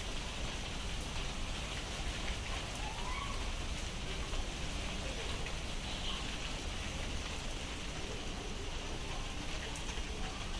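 Steady rain falling, with occasional distinct drops standing out from the even patter.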